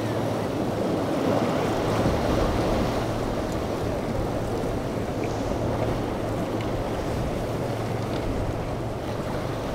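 Outboard-powered center-console boat running through choppy inlet waves: a steady low engine hum under the rush of breaking wake and surf, with wind on the microphone.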